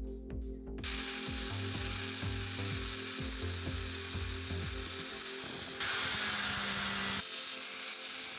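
A steady harsh noise from tool work on the cast-iron hand pump, starting about a second in and growing louder near the end, over background music with a beat.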